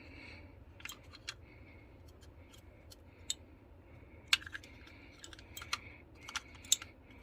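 Light, irregular clicks and taps from handling a new CR2450 coin-cell battery and the opened plastic BMW key fob. The sharpest clicks come a little past halfway and near the end.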